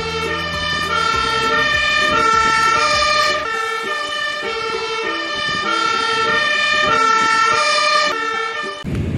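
Two-tone siren of a Magirus aerial-ladder fire truck, switching back and forth between a high and a low note. The truck's engine rumbles underneath for the first few seconds. The sound cuts off suddenly near the end.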